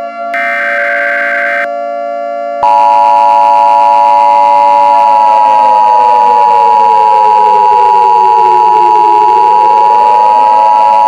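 Emergency Alert System broadcast tones. First comes a short burst of buzzing header data. About two and a half seconds in, the loud two-tone attention signal starts and holds steady. Underneath, a siren slowly slides down in pitch and rises back again.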